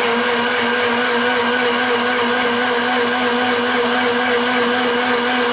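Electric countertop blender running at a steady speed, blending a thin yogurt-and-water drink, with an even motor hum that holds one pitch.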